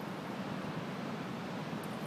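Steady wind noise buffeting the microphone, with no distinct sounds standing out.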